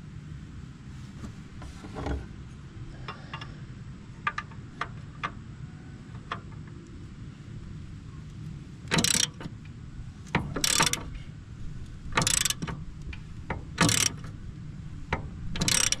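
Ratchet wrench turning the track tension adjuster on a mini skid steer. Scattered light metal clicks come first, then five loud ratcheting bursts about every second and a half in the second half.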